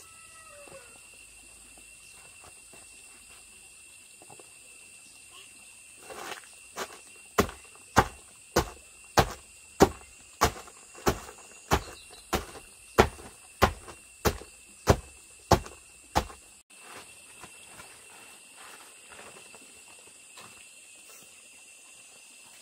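Long wooden pestle pounding cooked glutinous rice in a mortar for banh day: a run of about seventeen regular thuds, a little more than one a second, starting about six seconds in and stopping about ten seconds later.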